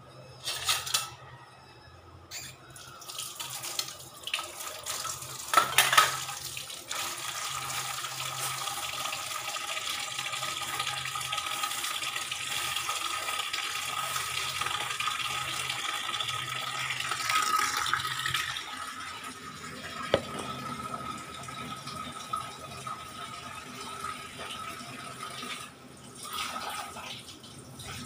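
Kitchen tap running into a sink: a steady rush of water switched on about a quarter of the way in and shut off around two-thirds through. A few sharp knocks of handled kitchenware come before it.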